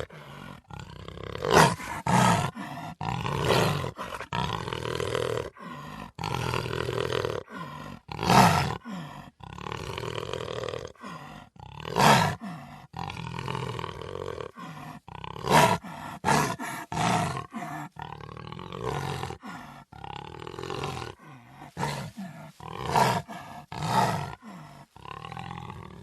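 A big cat roaring: a dozen or so loud, harsh calls at irregular intervals, with long drawn-out lower calls between them.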